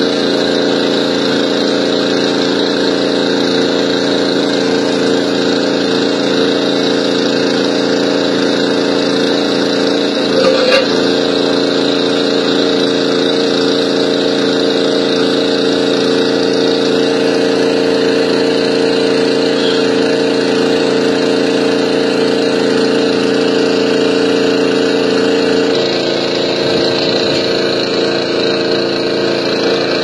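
Hitachi mini excavator's diesel engine running steadily while its boom and bucket are worked by remote control. A brief clunk comes about ten seconds in, and the engine note drops a little near the end.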